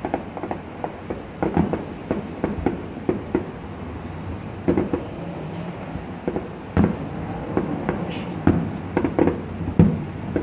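Aerial fireworks bursting: an irregular string of sharp bangs and pops, often several a second.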